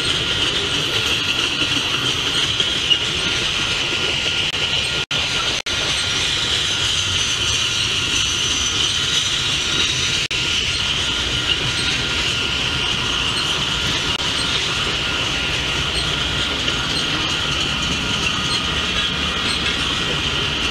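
Union Pacific freight train of refrigerated boxcars rolling past: a steady rumble of steel wheels on rail, with a continuous high-pitched wheel squeal over it. The audio cuts out very briefly twice about five seconds in and once about ten seconds in.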